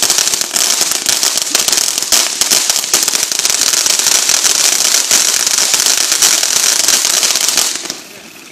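Consumer firework fountain spraying, a steady hiss packed with rapid crackling pops. It stops suddenly near the end.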